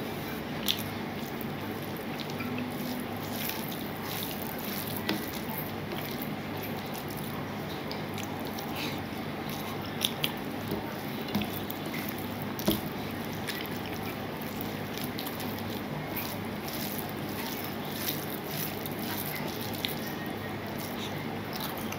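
Close-up eating by hand: fingers squishing and mixing rice with curry on a steel plate and chewing, heard as scattered small wet clicks over a steady background hum.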